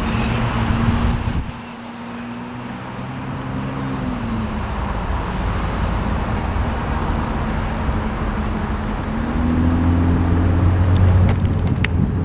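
Diesel locomotive engine of an Amtrak passenger train running loudly as the train moves, with its engine note rising and growing louder near the end. Sharp clicks come in during the last second.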